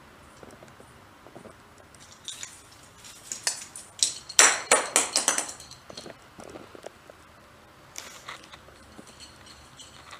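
A Christmas tree ball ornament batted down by a cat, clattering and bouncing on a wooden parquet floor in a quick run of sharp knocks about four seconds in, with lighter taps before and after.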